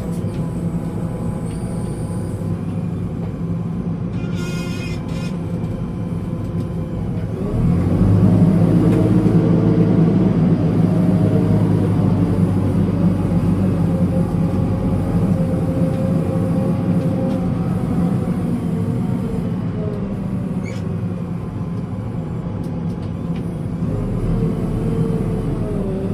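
Backhoe loader's diesel engine running, revving up about seven and a half seconds in and holding higher revs with a slowly shifting pitch before easing back.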